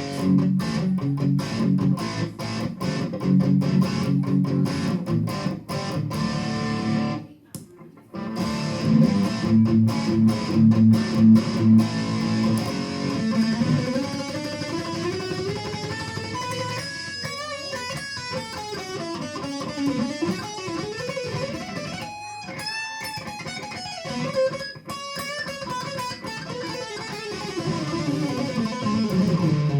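Electric guitar played through a clone Revv G3 distortion pedal, at high gain: driving, rhythmic low chords, a short break about seven seconds in, then in the second half notes that slide up and down in pitch.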